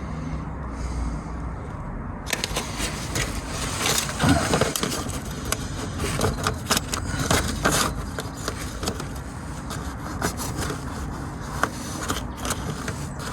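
Paper template crackling and scraping as it is pressed, rubbed and handled against a car body panel, over a steady low rumble. The crackling starts about two seconds in and thins out toward the end.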